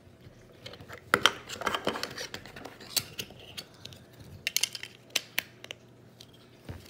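Plastic Lego pieces clicking and clattering on a tabletop as they are picked up and fitted together: a scattering of short, sharp clicks.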